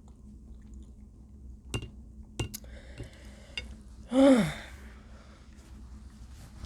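A few light clicks and knocks, then about four seconds in a person's short, loud voiced sigh that falls in pitch, just after saying they are full.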